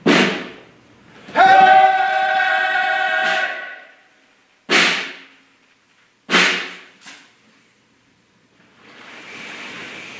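Live theatre music: a sharp struck hit that rings away, then a loud held note for about two seconds, then two more struck hits that ring and fade, with a faint hiss of room noise coming up near the end.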